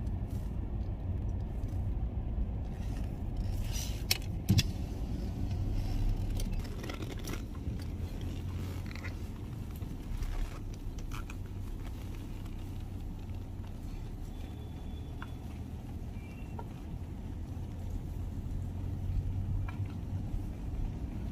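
A car running, heard from inside the cabin as a steady low rumble, with a couple of sharp clicks about four seconds in.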